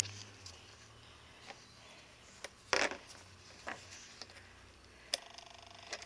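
Faint clicks and rustling from a hollow plastic owl decoy being handled close to the microphone, with one short louder scrape about three seconds in. Near the end a faint, rapidly pulsing electronic tone sets in.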